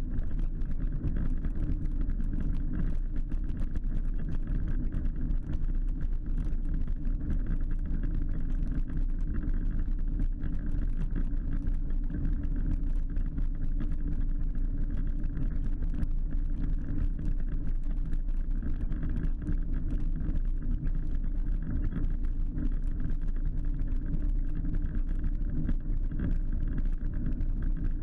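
An 8 mph electric mobility scooter driving steadily along tarmac: a constant low rumble of tyres on the road and wind buffeting the microphone, with a faint steady electric motor whine above it.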